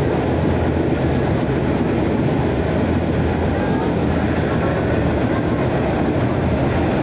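Vintage R33/R38 New York City subway train running at speed, its wheels on the rails making a steady, loud running noise heard from inside the car.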